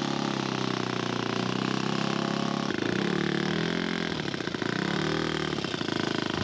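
Model airplane engine running. Its pitch is steady, shifts about three seconds in, and then rises and falls.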